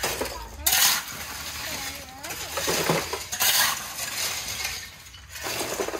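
Shovel scraping and scooping through broken brick and tile rubble, several gritty scrapes with the clink of brick fragments, about a second apart.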